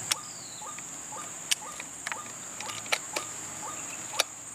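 White-breasted waterhen call: short rising notes repeated about twice a second. Under it runs a steady high-pitched insect drone, and several sharp clicks come through, the loudest near the end.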